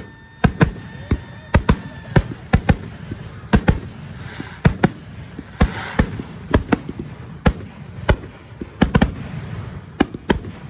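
Aerial fireworks shells bursting in rapid, irregular succession: a dense run of sharp bangs, about two to three a second.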